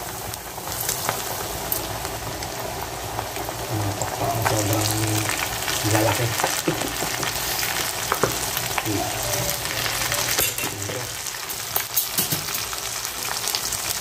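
Chicken wings deep-frying in hot oil in a stainless steel pot: a steady, dense sizzling and crackling as raw pieces are lowered into the oil, with a few sharp clicks scattered through it.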